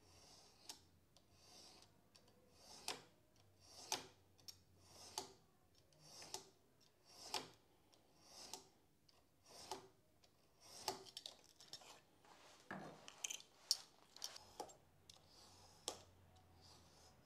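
Craft knife scoring through a thin piece of wood veneer along a steel rule, a series of faint scratching strokes roughly one a second. Each pass cuts a little deeper into the veneer.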